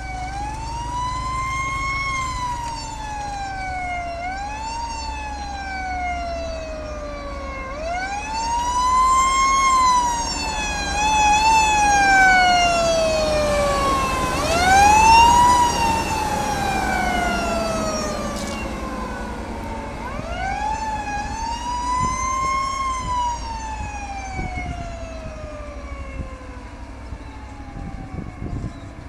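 A siren wailing in slow, uneven sweeps. Each sweep rises quickly in pitch over a second or two, then falls slowly for several seconds before rising again, about five times, over a low steady rumble.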